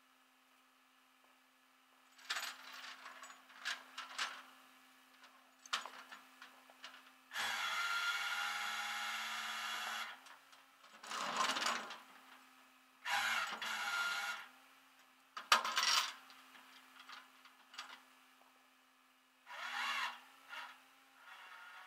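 A tow chain and its hooks clinking and rattling against the aluminum deck of a rollback tow truck as the chain is hooked to a minivan, over a faint steady hum. About seven seconds in, a louder steady mechanical sound runs for a couple of seconds.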